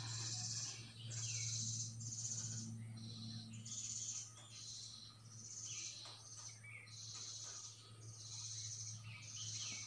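Repeated high-pitched chirping trills from small creatures, birds or insects, about one every second, over a steady low hum.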